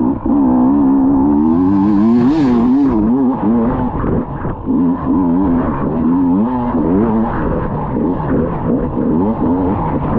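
Off-road motorcycle engine revving up and down again and again as the throttle is worked, with a brief hiss about two seconds in.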